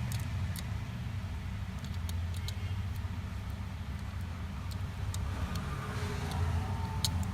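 Steady low hum with scattered light, sharp clicks of small tools and phone parts being handled, a few of them close together.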